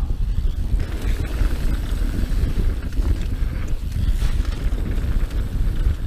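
Wind buffeting the microphone as a YT Jeffsy mountain bike speeds down a dirt trail, over a steady low rumble of tyres on the ground. A few short clicks and rattles come from the bike as it hits bumps.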